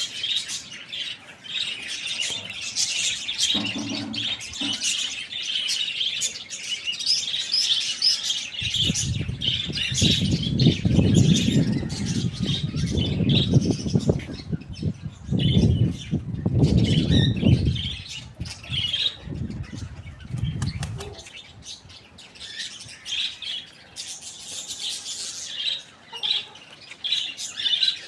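Small birds chirping and chattering continuously in a dense flurry of short high calls. From about nine seconds in until about twenty-one seconds, a louder low rushing noise lies under the chirping.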